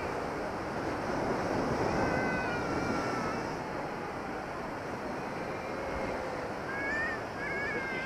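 Storm surf on a pebble beach: a steady rush of breaking waves. Birds call over it twice, about two seconds in and again near the end.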